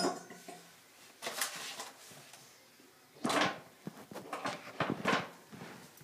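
Handling noises of a small plastic tap cap being fitted to a bathroom tap: a sharp click at the start, then short scraping and clicking sounds in several bursts, busiest in the second half.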